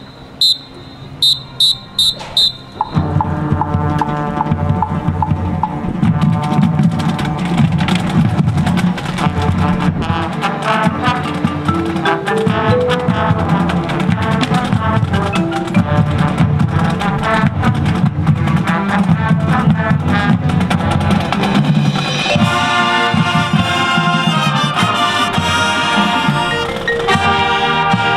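A few short, sharp whistle blasts counting off, then about three seconds in the full marching band starts playing together: sousaphones, trumpets, flutes and clarinets over drums. It plays loud and steady from there on.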